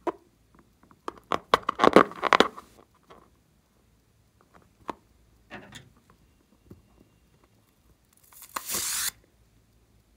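A rubber balloon filled with slime is handled and squeezed. A burst of crackly rubbing and squeaking comes in the first few seconds, then a few light touches, and near the end a short hissing squirt as slime is forced out through the balloon's opening.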